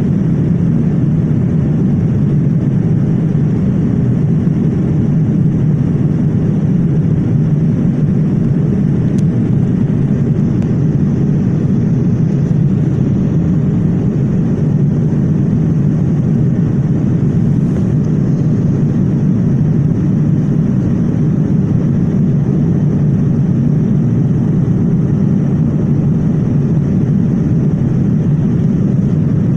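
Boeing 787 in flight: a steady, loud, low roar of engine and airflow noise, unchanging throughout.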